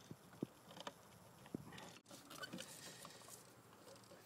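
Faint, scattered light clicks and small scrapes from hands handling a GFCI receptacle and its wires during wiring.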